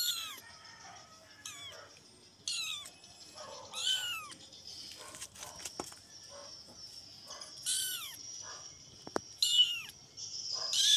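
A very young kitten mewing repeatedly, a string of high-pitched mews that each rise then fall, every second or two. It is crying for its mother.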